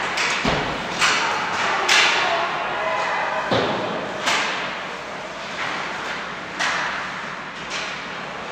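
Ice hockey play in a rink: several sharp knocks and thuds of sticks and puck, some against the boards, each echoing in the arena, with voices in the background.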